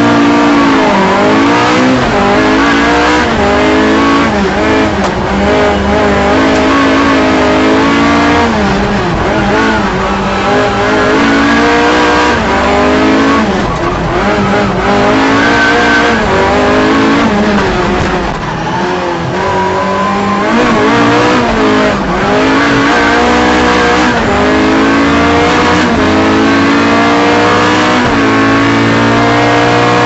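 Ford Escort rear-wheel-drive rally car engine heard from inside the cabin at full stage speed. The revs climb again and again through the gears, then fall away several times as the car lifts and brakes for corners before pulling hard once more.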